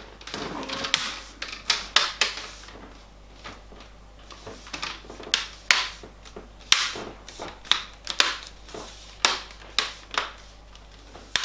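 Plastic screen bezel of a Lenovo 510 laptop being pressed onto the lid: a string of irregularly spaced sharp clicks as its snap-fit clips catch, with some rubbing of plastic between them.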